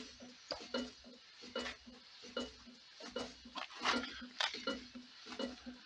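Homemade wood-fired alpha-type Stirling engine running slowly with its crank set to a 90-degree phase angle. Its mechanism knocks and clinks in a regular rhythm, a little over once a second, with lighter clicks in between.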